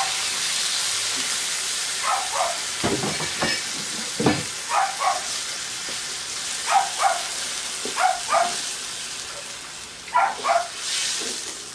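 Watery tomato-paste sauce with onions and peppers sizzling and simmering in a wok while a wooden spatula stirs it, with a couple of low knocks about three and four seconds in. Over it, short high calls come in pairs every two seconds or so.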